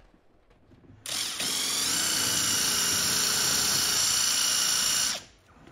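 Power drill spinning a wire brush against the car's bare metal floor, scrubbing paint off a bolt location to make a clean ground point for an amplifier. It starts about a second in, rises in pitch as it spins up, runs steady, and stops shortly before the end.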